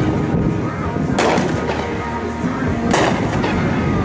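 World Class Death Squad, a 200-gram consumer fireworks cake, firing its shots: two sharp bangs, one about a second in and one about three seconds in, each with an echoing tail.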